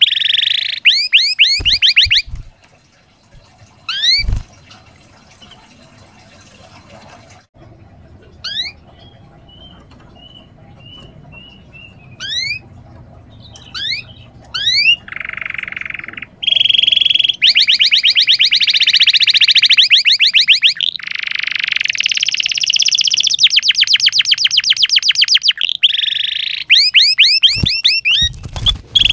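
Domestic canary singing: quick runs of rising chirps, a quieter stretch of single upward sweeps and a short string of repeated notes, then long, loud, rapid trills through the second half before the chirping runs return near the end.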